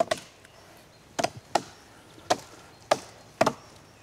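Medieval-style wood axes chopping into a standing tree trunk to fell it: about six sharp, uneven strokes of the blade biting into the wood.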